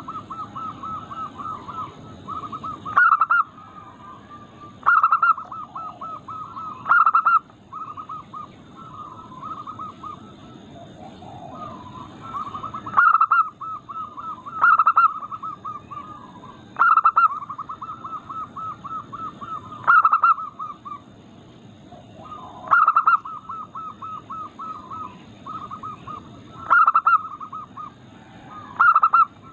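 Zebra dove (perkutut) song: runs of rapid staccato coos, each run opening with a louder note and recurring every two to four seconds.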